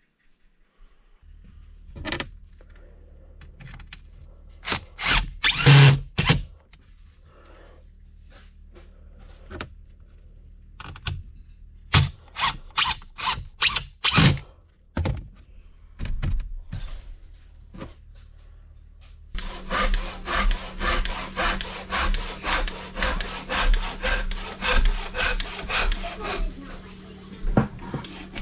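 Ridgid cordless impact driver running screws into a plywood shelf in several short bursts. Then a handsaw cuts a wooden board in steady back-and-forth strokes, about two a second, for several seconds. A steady low hum runs underneath.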